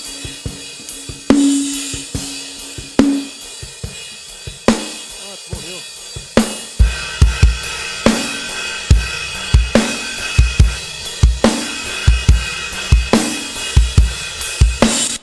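Playback of a studio-recorded acoustic drum kit: snare hits with a ringing tone over a wash of cymbals and hi-hat, and the kick drum coming in about seven seconds in to make a steady groove.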